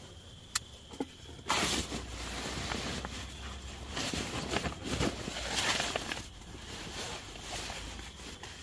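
Rustling and crinkling of a bivy bag and sleeping bag as a person shifts around, settles in and pulls the bag up over himself. It starts about a second and a half in, after two short clicks.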